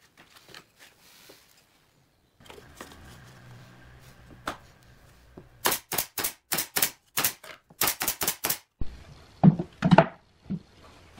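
Pneumatic nail gun firing about a dozen sharp shots in quick succession, roughly four a second, nailing plywood speaker-box panels together. A few heavier wooden knocks follow near the end.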